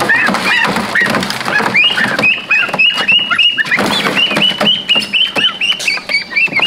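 Geese and ducks calling from a cage: many rapid, high, overlapping peeping calls, a few each second, with scattered knocks.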